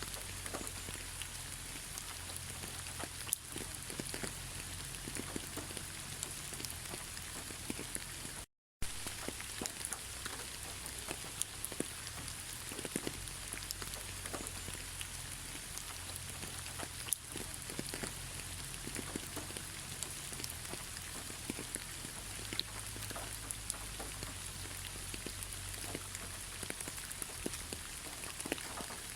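Steady rain falling, with many separate drops pattering and ticking over an even hiss and a low rumble. The sound drops out completely for a split second about eight and a half seconds in.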